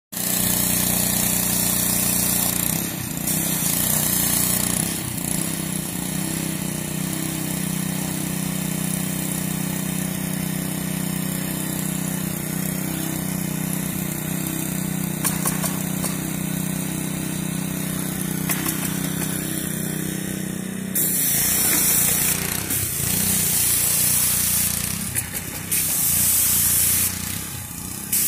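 An engine running steadily, with several loud bursts of hiss in the last few seconds.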